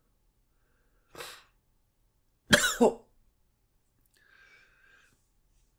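A man with a cold and sore throat coughing: a short breathy sound about a second in, then a louder, voiced cough about a second and a half later.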